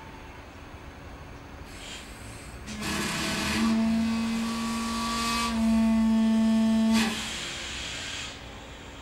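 A steady pitched tone, with a faint hiss just before it, starts about three seconds in, grows louder partway through and cuts off suddenly with a click; a softer hiss trails off after it.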